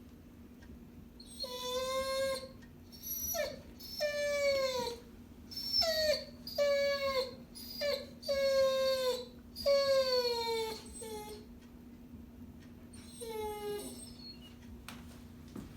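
A dog whining and half-howling: a string of about ten high, falling whines with short gaps between them, dying away for the last few seconds. A faint steady hum runs underneath.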